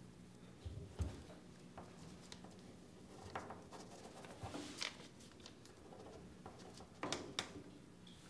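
Faint room tone in a small, quiet room, with scattered soft rustles and small clicks. There is a low knock about a second in and two sharper clicks close together near the end.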